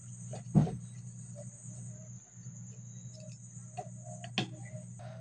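Scattered clicks and knocks from a screwdriver and hands working on a gas stove's burner valve assembly, the sharpest about half a second in and a little past four seconds. Behind them run a steady low hum and the continuous high trill of crickets.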